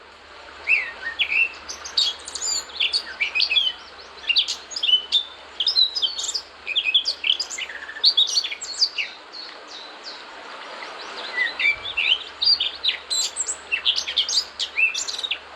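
Birds chirping and twittering: a dense run of short, high, quick chirps, thinning out briefly about two-thirds of the way through before picking up again.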